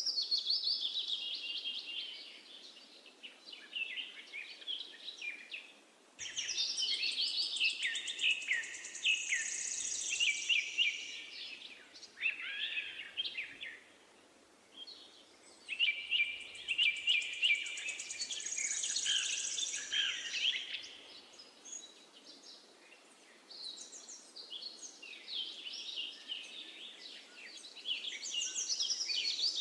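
Birdsong: birds chirping and trilling in phrases of a few seconds, with short pauses between phrases.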